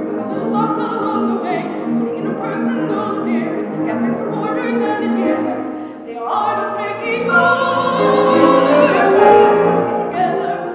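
A woman singing a Broadway show tune with piano accompaniment, the piano keeping a steady pulse of repeated chords under her voice. About six seconds in her voice jumps up into a louder, sustained passage that builds toward the climax of the song.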